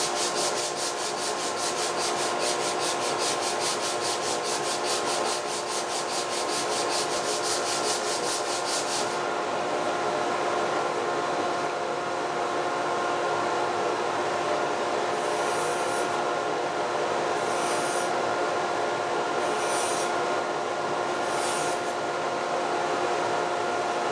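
Hand-worked wooden strip rubbed with a steel tool: a quick run of short strokes for about nine seconds, then four separate strokes about two seconds apart. A steady shop-machine hum runs underneath.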